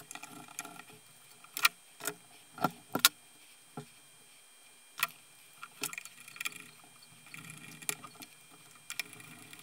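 Scattered small clicks and taps of hands handling wires and a plastic LED tube end cap, with a screwdriver working at the cap's wire terminals near the end.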